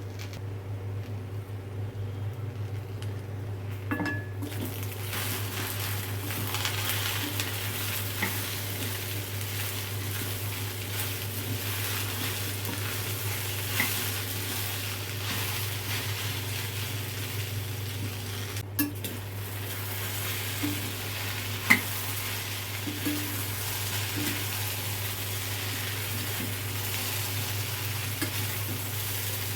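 Okra sizzling as it fries in a pan, with a spoon stirring and now and then clinking against the pan. The sizzle starts about four seconds in, over a steady low hum.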